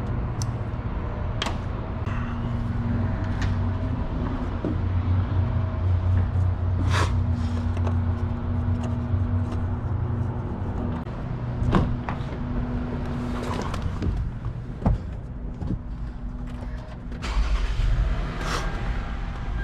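A steady low mechanical hum with scattered clicks and knocks throughout, and a louder low rumble near the end.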